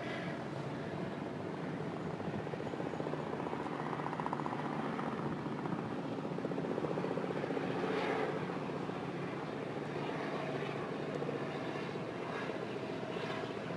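Helicopter running, its rotor blades beating in a rapid, even chop over the engine. The sound is steady and swells slightly in loudness around the middle.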